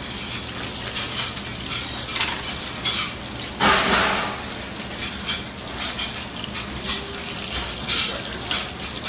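Scallops sizzling in a pan of rendered guanciale fat, with metal tongs clicking against the pan and a wire cooling rack as the seared scallops are lifted out. A brief louder rush of noise comes just under four seconds in.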